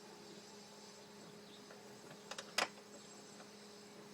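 A wrench tightening a bolt on the window mechanism inside a car door: a few short metallic clicks, the loudest about two and a half seconds in, over a faint steady hum.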